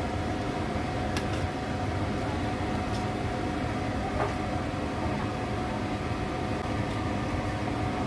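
A steady whirring fan noise with a constant hum, with a few light clicks of metal tongs against the wire cooking basket about 1, 3 and 4 seconds in.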